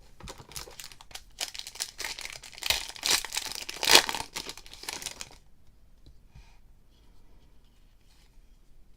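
A trading-card pack wrapper being torn open and crinkled, loudest about four seconds in, then a few seconds of faint handling of the cards.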